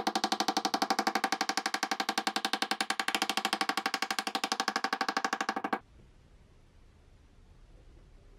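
Small hammer tapping rapidly on a solid bronze knife handle with the steel blade seated in it, about ten light metallic strikes a second with a ringing note. The tapping stops abruptly about six seconds in.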